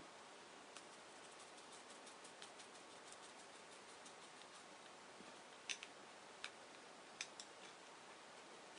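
Near silence: room tone with faint scattered small clicks and taps, a few slightly louder ones from about halfway on.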